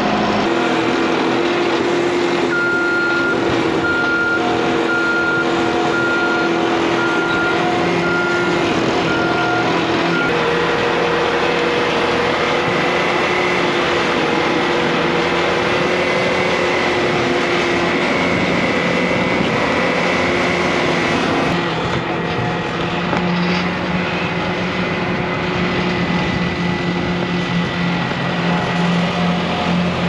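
Bobcat skid steer loader's diesel engine running steadily as it carries a steel squeeze chute, with its backup alarm beeping about once a second for roughly the first ten seconds.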